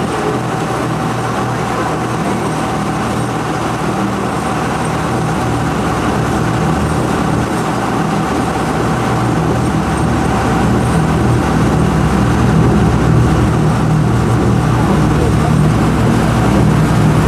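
Amphibious duck boat's engine running steadily while the boat cruises on the river, a continuous low drone with a faint steady whine, growing a little louder toward the end.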